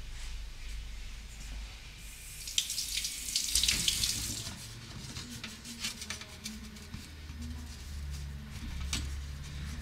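Water running from a tap and splashing, loudest about two to five seconds in, over a steady low hum.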